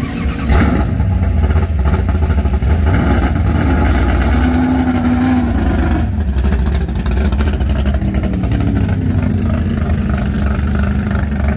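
Loud, steady low engine note from a 1963 Plymouth Stock Eliminator drag car at low speed as it rolls slowly past.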